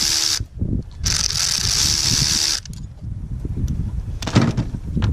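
A cordless power tool spinning a 10 mm socket to loosen a bolt runs in two bursts: one cuts off about half a second in, and the second runs for about a second and a half. After that come clinks and knocks of tools and metal parts being handled.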